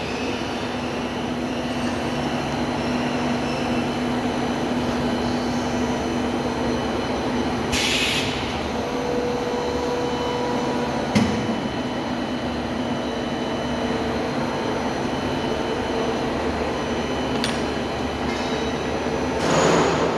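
Tube punching machine running with a steady mechanical hum. A short hiss comes about eight seconds in and again near the end, with a single sharp click about eleven seconds in.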